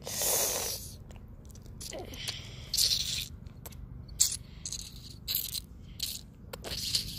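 Irregular short rattles and scrapes of hard plastic toy dinosaurs being handled and knocked together, with one longer rustle at the start.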